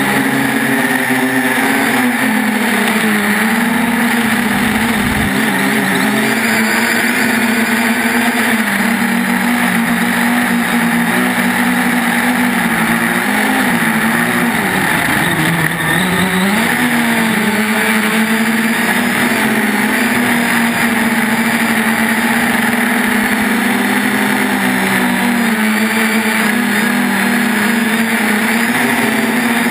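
3DR Iris+ quadcopter's electric motors and propellers buzzing loudly in flight, the pitch dipping and rising again several times as the throttle changes.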